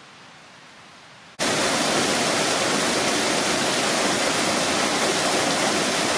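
Faint outdoor background, then, about a second and a half in, a sudden cut to a waterfall rushing loudly and steadily, heard close.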